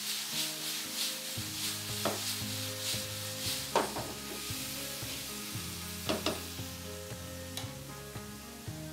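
Chicken pieces sizzling in oil in a frying pan over a gas flame, stirred with a silicone spatula in quick scraping strokes for the first few seconds, then a few sharp knocks of the spatula against the pan.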